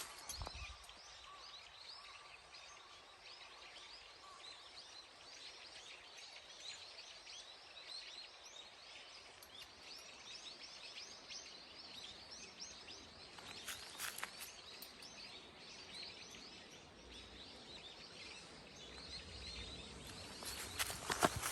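Faint outdoor quiet filled with many short chirps of small birds. Footsteps on the snowy path start up again near the end.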